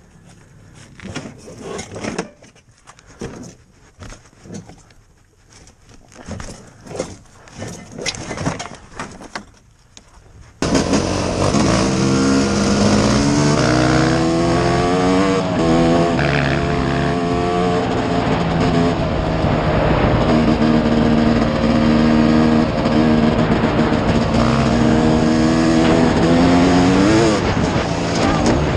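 Scattered quiet knocks and scuffs, then about ten seconds in a dirt bike engine starts up loud and close to a helmet camera. It runs at a fairly steady pitch with small shifts and climbs briefly near the end.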